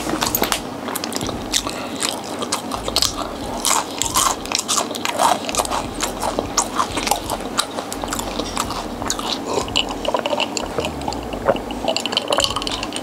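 A person biting and chewing crispy fried food close to the microphone, with many quick, irregular crunches.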